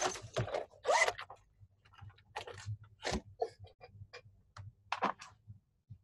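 Irregular short clicks, scrapes and rustles, like handling noise from people moving things about a room, a few to a second with gaps between.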